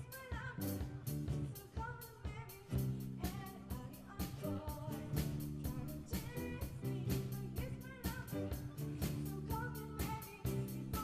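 Live rock band playing: drum kit beating steadily under sustained bass and guitar chords, with a voice singing over them.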